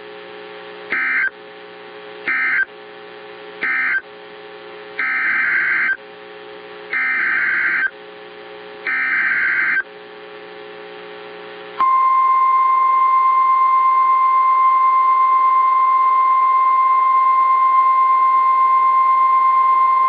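Emergency Alert System data bursts: three short warbling bursts, then three longer ones about a second each, typical of an end-of-message code followed by a new SAME header, over a steady low hum. About twelve seconds in, the hum gives way to a loud, steady single-pitch alert tone, the NOAA Weather Radio 1050 Hz warning alarm, which holds for about nine seconds.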